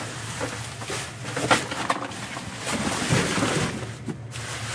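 Rummaging through dumpster contents: rustling and handling noise broken by several sharp knocks and clatters.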